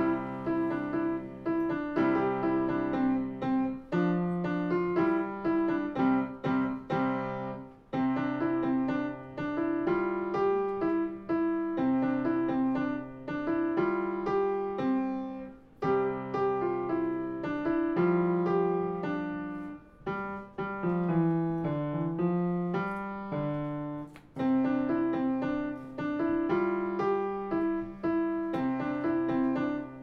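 A child playing a Petrof grand piano: a simple melody in short repeating phrases over held lower notes, with a brief pause at the end of several phrases.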